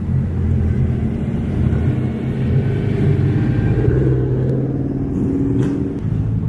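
Car engine running close by, its pitch swelling and easing slightly about halfway through.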